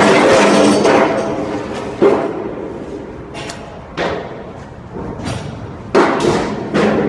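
Heavy thuds, like blows on wood, struck about two seconds apart and then one quicker one near the end, each dying away briefly.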